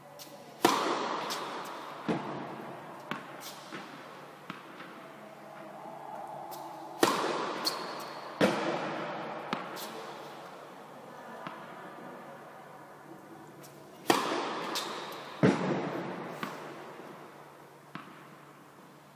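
Tennis serves hit in an indoor tennis hall: three sharp racket-on-ball strikes about six to seven seconds apart, each followed about a second and a half later by a second sharp impact as the ball lands or strikes the back of the court, with a long echo from the hall. Fainter ticks of the ball bouncing away come between the serves.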